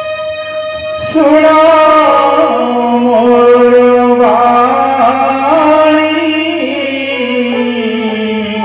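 Loud music with long held melody notes that step and bend in pitch over a steady low drone, a new, louder phrase starting about a second in.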